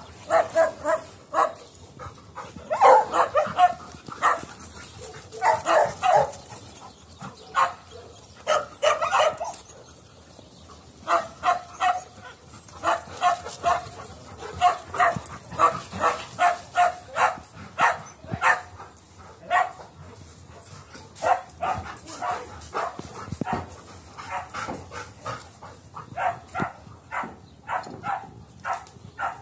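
Dogs barking repeatedly, in quick runs of short, sharp barks separated by brief pauses.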